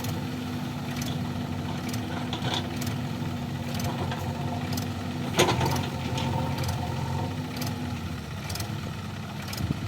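Diesel engine of a backhoe loader or tractor running steadily near idle, with one sharp clack about halfway through and faint regular ticking.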